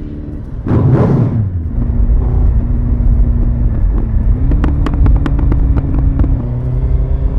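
Suzuki Hayabusa inline-four motorcycle engine, catalytic converter removed, revved sharply once about a second in, then idling. Around the middle comes a quick run of exhaust pops and crackles, like a popcorn machine.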